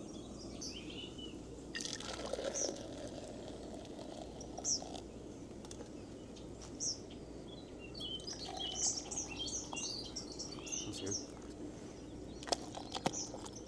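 Hot water being poured from a pot into a cup, with small birds chirping in short, high calls throughout.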